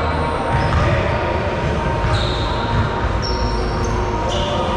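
Basketballs bouncing on a hardwood gym floor during play, in a large echoing hall.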